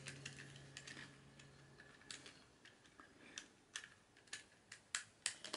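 A series of faint, irregular clicks and taps of hard plastic parts as a Super Mechagodzilla action figure is handled and a piece is pressed into place.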